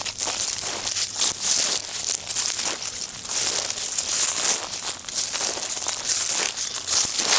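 Footsteps crunching through dry fallen autumn leaves, a dense, irregular crackle and rustle.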